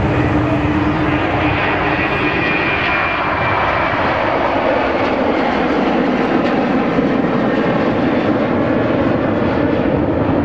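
Boeing 737 jet airliner's twin engines at takeoff thrust as it lifts off and climbs away: a loud, steady jet noise. A high whine heard over it for the first few seconds fades out.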